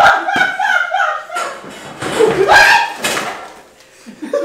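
Voices laughing and exclaiming without clear words, with a loud outburst about two seconds in.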